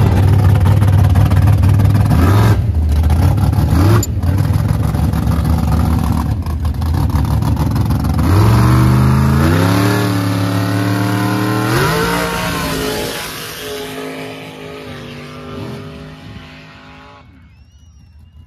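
Mud-drag truck's engine running loud at the start line, then launching: the engine note climbs steadily for about four seconds of hard acceleration, then fades away down the track.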